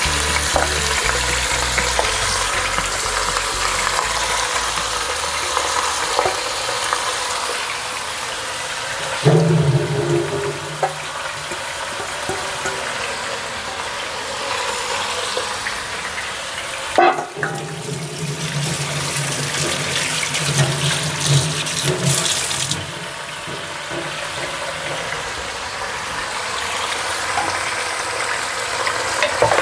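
Beef ribs sizzling as they fry in hot oil in a pressure cooker, a steady hiss with a short knock now and then.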